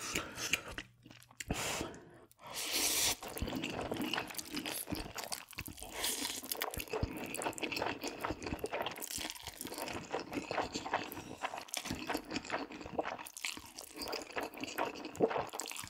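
Close-miked chewing and crunching of food: a dense, continuous run of small crisp crunches.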